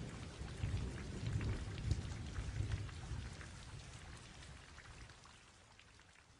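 Rain falling, a dense hiss of fine ticks over a low rumble, fading steadily away toward silence.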